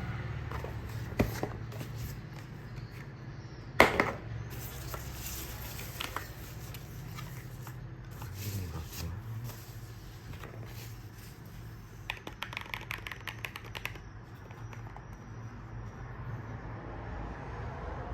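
Mechanical keyboard and its packaging being handled during unboxing: rustling and scraping, a sharp knock about four seconds in, and a quick run of clicks a little after the middle, over a steady low hum.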